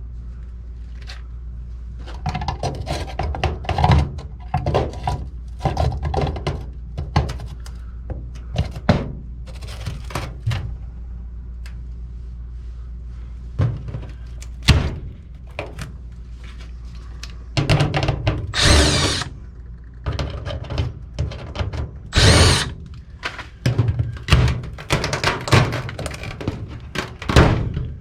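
Tools working on sheet-metal ductwork to enlarge a cut-out hole: a run of knocks and clatter, with two brief bursts of a power tool about two thirds through, over a steady low hum.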